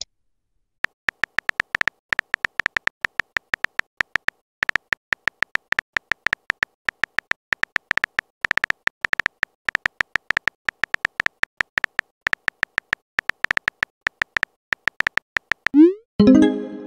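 Texting-app typing sound effects: rapid runs of short, high keyboard-tap clicks with brief pauses. Near the end comes a quick rising swoop and then a short chiming new-message tone.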